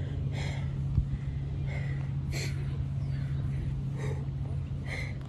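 A man breathing hard through a workout, with short forceful exhalations about once a second over a steady low hum. There is one sharp tap about a second in.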